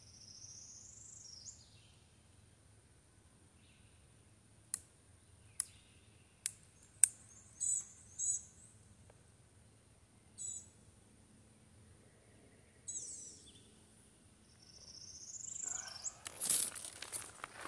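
A handheld lighter struck several times over charcoal briquettes, a few sharp clicks about five to seven seconds in, the flame not staying lit; birds chirp now and then. Near the end, rustling and shuffling as he gets up.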